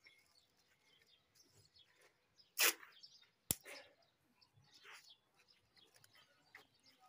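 Faint handling sounds of a paper kite being worked on: a short rustle about two and a half seconds in and a single sharp click about a second later, with a few fainter scrapes.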